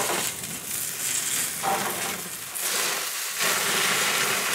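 Minced-meat patties and pita bread sizzling on a grill, a steady frying hiss that swells and fades a little.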